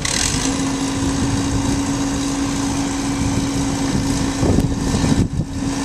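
Heavy diesel machinery running with a steady hum, with a short hiss right at the start.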